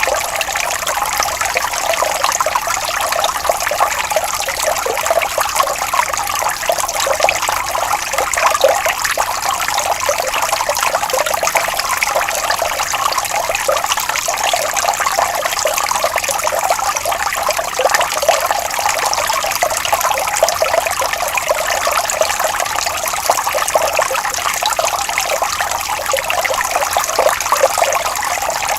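Water flowing and trickling steadily, with a continuous babble of small splashes.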